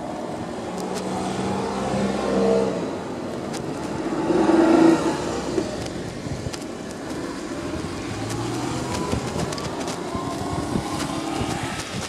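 Cars and a small kei truck driving over a railway level crossing after the barriers have lifted. Engines pull away close by, loudest as a vehicle passes about four to five seconds in, then another car goes by near the end.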